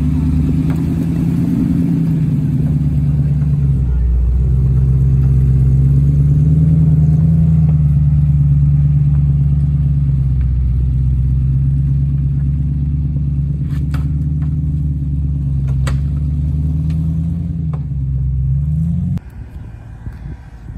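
Off-road vehicle's engine running at low speed under changing throttle, its pitch rising and falling slowly, with a few sharp knocks about two-thirds of the way through. The engine sound drops away abruptly near the end.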